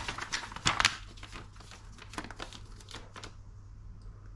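Pages of a paper instruction magazine rustling as they are turned and handled, loudest in the first second, then lighter rustles that die away about three seconds in.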